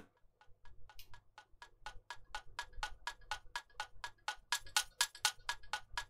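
A clock tick-tock loop built from sampled percussion hits plays as a quick, even run of ticks through a low-pass filter whose cutoff is slowly raised. The ticks start muffled and quiet and grow brighter and louder as the filter opens.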